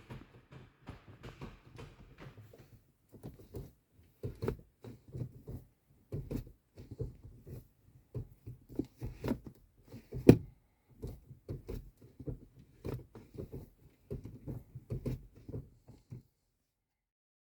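Ford Focus Mk4 manual gear stick being moved through the gears: an uneven series of clunks and knocks, with one sharper clack about ten seconds in and no squeak to be heard.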